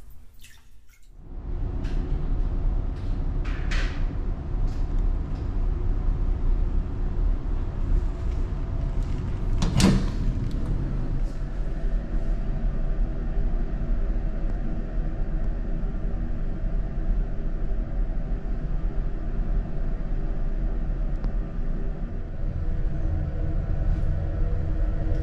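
Steady low rumble and hum of the Tokyo Kyushu Ferry Hamayuu's engines and machinery, heard inside a small shower room aboard, setting in about a second in. A single sharp knock about ten seconds in.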